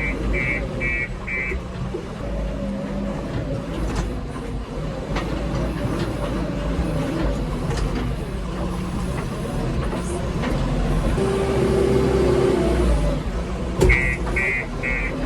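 Heavy diesel earthmoving machinery running with a steady low rumble. A reversing alarm beeps rapidly, about three times a second, during the first second and a half and starts again near the end, just after a sharp knock.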